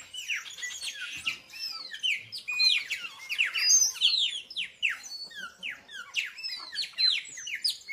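Several small birds chirping and calling together: a dense chorus of quick, downward-sweeping chirps and whistles, many overlapping.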